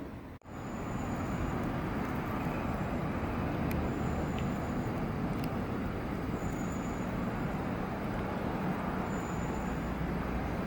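Steady background rumble and hiss, with a faint short high-pitched tone repeating about every three seconds; the sound drops out briefly just after the start.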